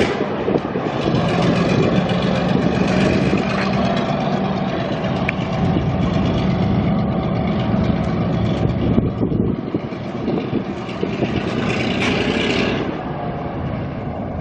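Diesel engine of a Victorian Railways Y-class shunting locomotive running under power as the locomotive moves off, a steady low drone that swells briefly near the end.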